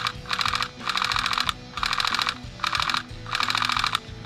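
Airsoft rifle firing in short bursts of rapid shots, about five bursts, each under a second long with brief gaps between, as suppressing fire.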